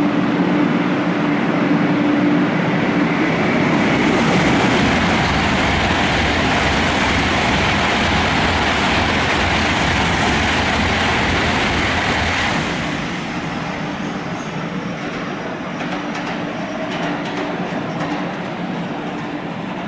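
Shinkansen bullet train running along the station tracks: a loud rushing rumble that drops away fairly sharply about twelve and a half seconds in, leaving a quieter steady noise.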